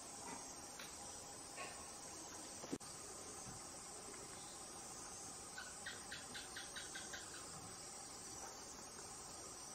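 Steady chorus of crickets. About halfway through, a short run of about nine quick, evenly spaced notes cuts through, and there is one sharp click a little before that.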